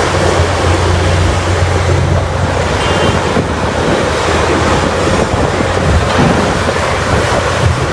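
Water spraying steadily onto a muddy toy excavator to wash it clean: a loud, even rushing with a low steady hum underneath, which starts and stops abruptly.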